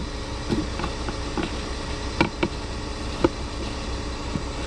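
A steady mechanical hum from the car, with a scatter of sharp clicks and knocks of parts and tools being handled, the loudest about two and three seconds in.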